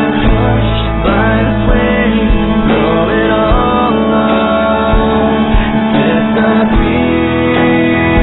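Background music: a song with singing over instruments.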